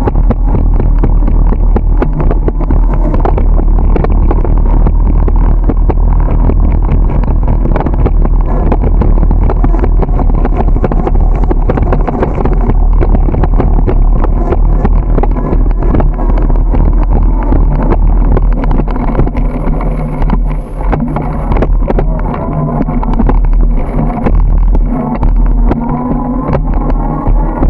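Wind buffeting the microphone of a camera mounted on a moving bicycle, a loud steady low rumble, with frequent small clicks and rattles from the ride. The noise dips briefly about twenty seconds in.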